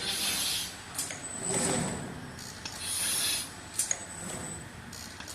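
CNC shape glass cutting machine at work, its cutting head scoring the glass in repeated raspy, hissing strokes about every second and a half, with sharp clicks between them.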